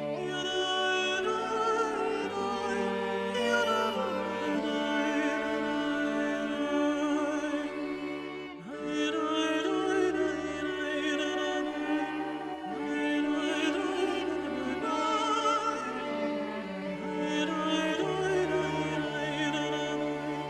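Background music: operatic singing with vibrato over orchestral strings, with a brief break about eight and a half seconds in.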